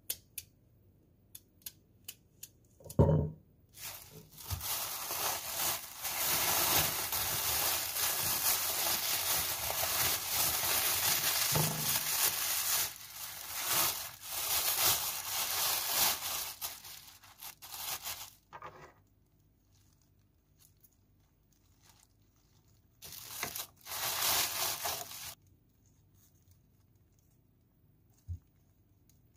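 A few light clicks and a sharp thump on the countertop, then a thin plastic produce bag rustling and crinkling in two long stretches as a cauliflower is handled and unwrapped from it.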